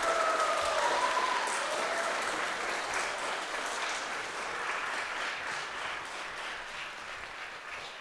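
Audience applauding after the ballet music ends, the clapping slowly fading. A voice calls out over it in the first couple of seconds.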